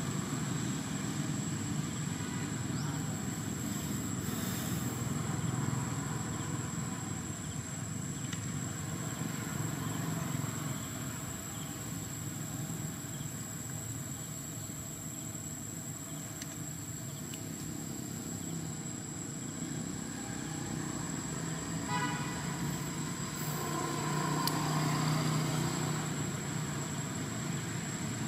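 Steady low outdoor rumble with a constant thin high tone over it. A single brief call is heard about three quarters of the way through.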